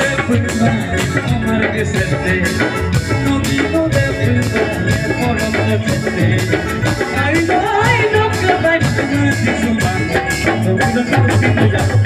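Live band music: a male singer's amplified voice over a steady drum beat, bass, electric guitar and keyboard.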